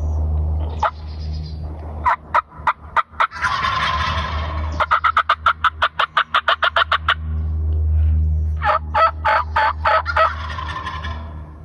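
Turkey calling: runs of quick, sharp, evenly spaced notes, each stretch followed by a rattling burst about a second long, like a gobble, over a steady low hum.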